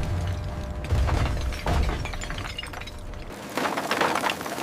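Industrial crusher breaking dried animal bones: a low machine rumble with heavy cracks, then about three seconds in the rumble cuts off and a dense crackle of shattering bone fragments takes over.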